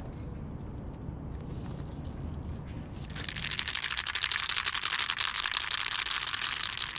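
Montana spray paint cans being shaken, the mixing balls inside rattling in a rapid run of clicks that starts about three seconds in.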